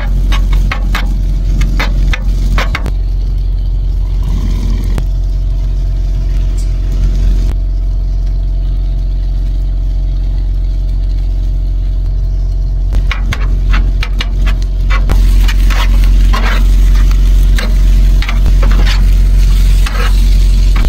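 Metal spatula scraping and clacking on a hot steel griddle plate as chicken and rice are chopped and turned, with the food sizzling. The strokes come in a flurry at the start, stop for a quieter stretch in the middle, and pick up again, busier, for the last several seconds. A steady low hum runs underneath.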